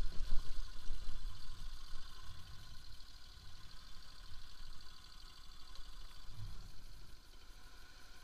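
Bajaj Pulsar RS200's single-cylinder engine running at low revs as the motorcycle crawls over a rough cobbled track, with uneven low thumps from the bumps. It is loudest in the first second or so.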